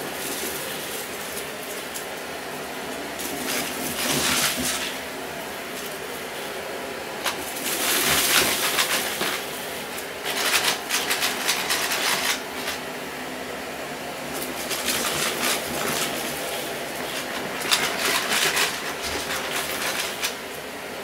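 Upright vacuum cleaner running steadily on carpet, with about five bursts of crunching and rattling as it sucks up small pieces of cardboard debris, each lasting a second or two.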